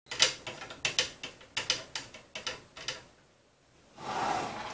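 Irregular clicking and rattling of small 3D-printer parts being handled during assembly, roughly three or four clicks a second for about three seconds, then a soft rustle near the end.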